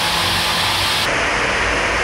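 Steady, loud rushing hiss with a faint low hum beneath it.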